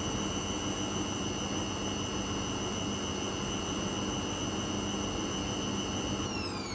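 Hoover front-loading washing machine on its spin cycle: the motor and drum run at speed with a steady whine over a wash of noise. Near the end the whine starts to fall in pitch as the spin begins to slow.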